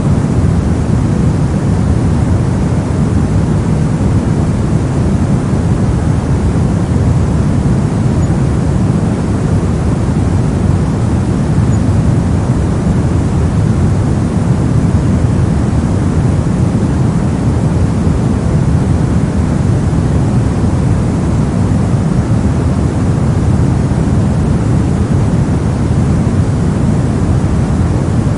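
Steady soft noise, a deep, bass-heavy hiss like brown or pink noise, unchanging in level and with no pitch or rhythm.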